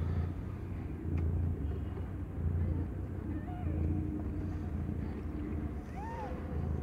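Mother cat purring, a steady low rumble that swells and fades about once a second with her breathing. A short squeak comes about six seconds in.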